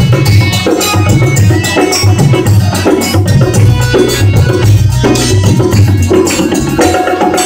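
Live chutney music, instrumental: a dholak hand drum beating a steady rhythm, with small rattling percussion and a held melody line over it.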